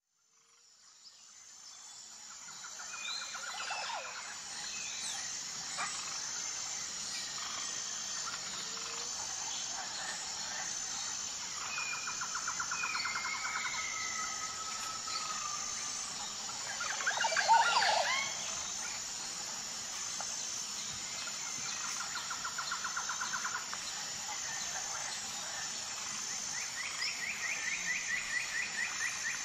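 Natural ambience of birds and insects. A steady high insect drone with an even pulse runs throughout, with repeated buzzy trills and short sliding bird calls over it. A louder cluster of bird calls comes a little past halfway. It fades in at the start.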